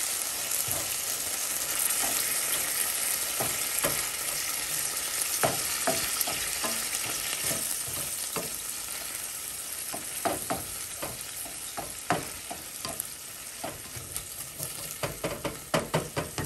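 Beef and tomato sauce sizzling in a frying pan while a slotted spatula stirs and scrapes through it. The sizzle slowly fades, and the spatula strokes come quicker and sharper toward the end.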